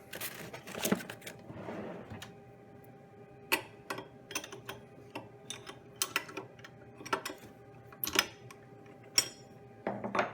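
Scattered metallic clicks and clinks of tools being handled at a CNC router's spindle while the cutting bit is changed and the collet is taken off, with a faint steady hum underneath.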